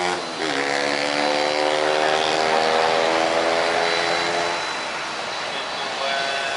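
Japan Airlines Boeing 767-300ER's twin General Electric CF6 turbofans running at low power as the airliner rolls past after landing. A steady layered engine hum dips in pitch in the first half-second, with a thin high whine above it, and it eases off in the second half.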